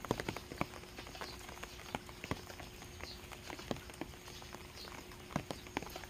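Rainwater dripping off thatched eaves in irregular single drops that tap on wet ground and stones, over a light rain hiss. A faint high bird call repeats about every two seconds.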